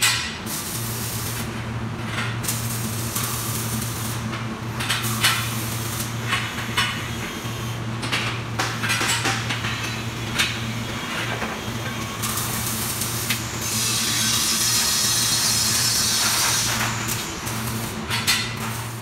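Steel seat-bracket frame parts clanking and knocking as they are handled and set on a metal welding table, over a steady low electrical hum. A few seconds past the middle a steady hiss rises over the clanks and then fades.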